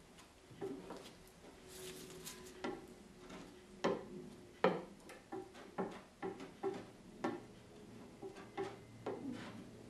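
Putty knife spreading epoxy over a fiberglass cloth patch on a boat hull: irregular scraping strokes and sharp clicks as the blade drags and lifts across the wet cloth.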